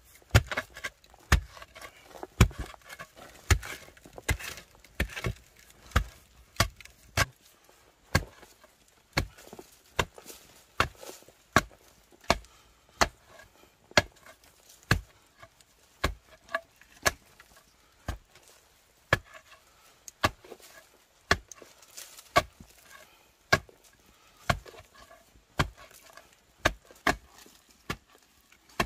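Thick bamboo pole jabbed down into packed earth again and again, about once a second, each stroke a sharp thud as it breaks up the soil to dig a hole.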